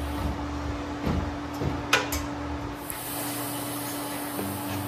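A sharp knock about two seconds in, then from about three seconds the steady hiss and crackle of a MIG welder's arc as steel boxing plates are tack-welded to the truck's frame rails.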